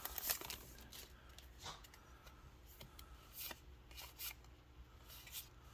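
Faint, scattered flicks and slides of Yu-Gi-Oh trading cards being handled and flipped through one by one.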